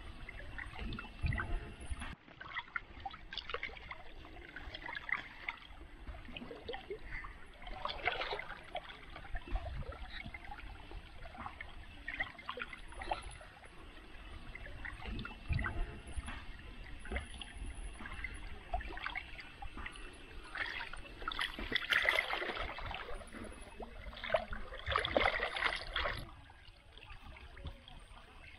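Shallow muddy water splashing and sloshing irregularly as a person wades and digs with bare hands along the bank of a field channel. The splashes are strongest about eight seconds in, and again in a longer bout past the middle.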